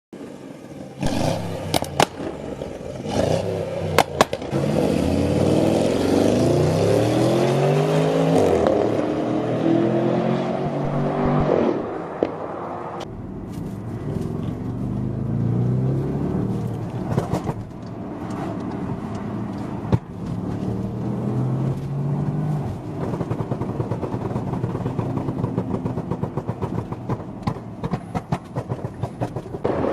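Porsche Cayenne exhaust with Stage 1 downpipes: the engine revs up and down, its note climbing for several seconds, then falling and changing again. Sharp pops and crackles come from the exhaust, a few in the first seconds and many in quick succession near the end.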